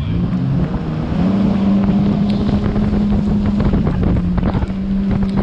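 Yamaha FX HO jet ski's four-stroke engine running at speed, its pitch stepping up about a second in and then holding steady, with wind rushing over the microphone.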